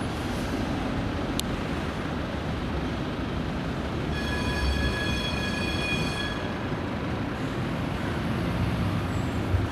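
Munich tram rolling through an intersection over steady city-traffic noise, its rumble growing as it comes closer. From about four seconds in, a high, steady ringing tone with many overtones sounds for about two and a half seconds.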